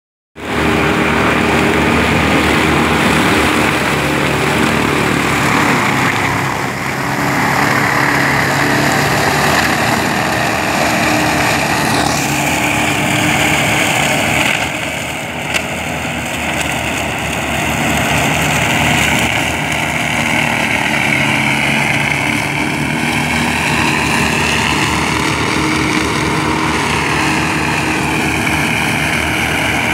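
An engine running steadily, with one sharp click about fifteen seconds in.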